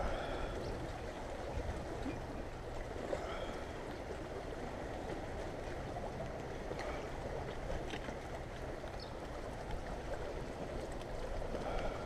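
Steady outdoor rushing noise with a few faint clicks.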